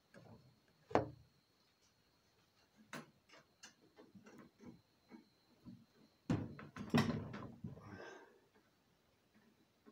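Metal compressor parts and hand tools being handled on a workbench: a sharp knock about a second in, scattered small clicks, and a louder clatter of knocks and rattling about six seconds in.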